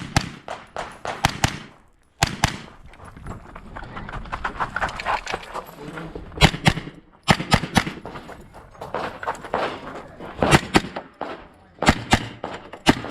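Gunshots fired in quick pairs and strings during a timed practical-shooting stage, each shot a sharp crack with echo off the range.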